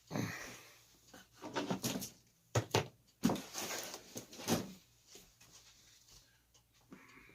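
Large cardboard box being handled and shifted on a table: a run of scrapes, rustles and knocks, busiest in the middle seconds.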